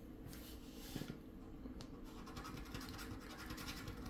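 A coin scratching the coating off a paper scratch-off lottery ticket: a few separate strokes at first, then rapid, even back-and-forth scraping from about halfway through.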